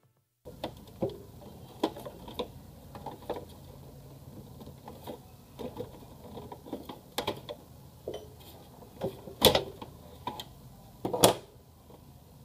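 Irregular plastic clicks and knocks from the opened HP LaserJet M1132 printer as its parts are handled, with two louder knocks near the end, over a low steady hum.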